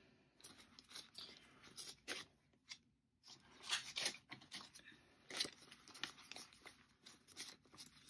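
Faint, irregular rustling of paper banknotes being handled and laid into a cash tray, with scattered light taps and clicks.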